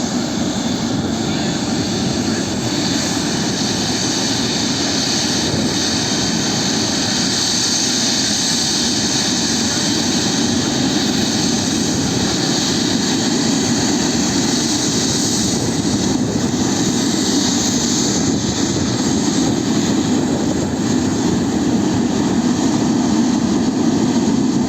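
Boeing 777 jet engines running at taxi power: a steady high whine over a low rumble, growing slightly louder over the last several seconds.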